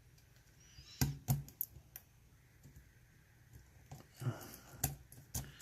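Light sharp clicks and a brief scrape of a lock pick and tension wrench working inside a Mul-T-Lock Interactive dimple padlock's keyway, with a few clicks about a second in and more near the end.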